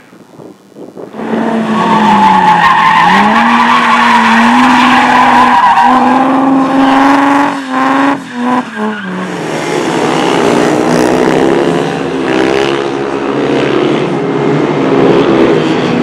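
Car engines held at high revs while drifting, the engine note rising and falling, with tyres squealing and skidding on the tarmac. It starts about a second in, breaks up around eight seconds, and then a different engine revving high takes over.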